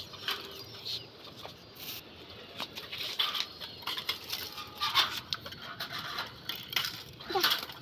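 Irregular clicks, taps and rattles of grain feed being scattered from a bowl into wire pigeon cages, with the pigeons moving about inside.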